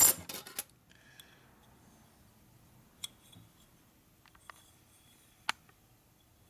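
A short metal scrape, then a few light, sparse metal clicks, the sharpest about five and a half seconds in, from a piston and its ring being handled while a tight ring groove is fitted.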